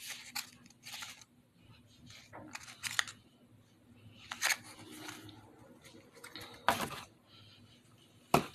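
Hands handling and opening tiny cardboard and plastic toy packaging: scattered clicks, taps and rustles, with sharper clicks about three seconds in, near seven seconds and near the end.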